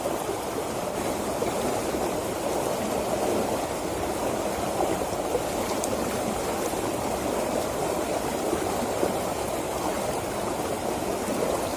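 Fast-flowing water rushing and churning over small riffles in a narrow concrete-edged irrigation ditch: a steady, unbroken rush.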